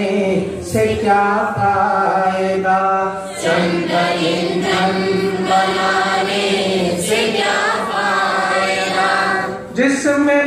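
A man's voice chanting a devotional hymn through a microphone, in long, held, melodic phrases with a short pause near the end before the next phrase begins.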